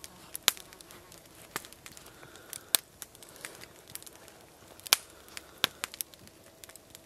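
Wood campfire crackling, with sharp pops every second or so, a few of them loud.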